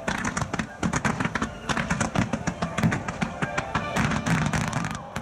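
A fireworks starmine barrage: rapid shell bursts and crackling, many bangs a second, over a pop song with vocals played through loudspeakers.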